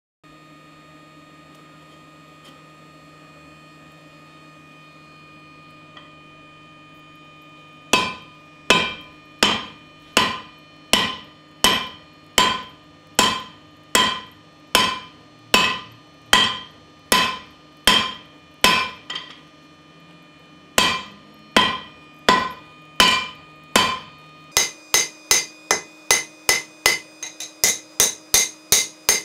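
Hammer striking red-hot steel bar stock on an anvil as it is tapered down to forge a drift. The ringing blows come about one and a half a second from about eight seconds in, with a short pause, then a much quicker run near the end, played back at double speed. A steady hum runs underneath.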